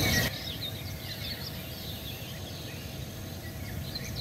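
Small birds chirping and calling in many short, quick notes over a low steady outdoor background. A louder rush of noise cuts off abruptly just after the start.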